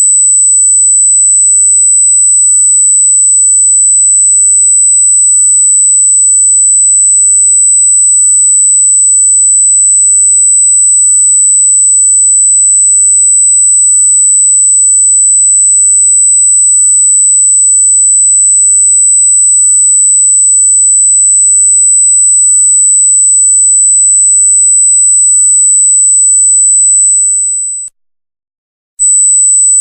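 A loud, steady, very high-pitched electronic tone: a single pure pitch held unchanging. About 27 seconds in, it fades out to silence for about a second, then comes back near the end.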